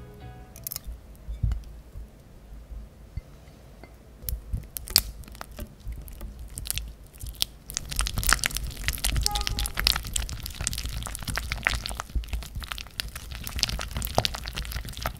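Softened butter being beaten with a silicone-coated whisk in a glass mixing bowl: a few scattered knocks, then from about halfway a fast, dense run of scraping and tapping of the whisk against the glass.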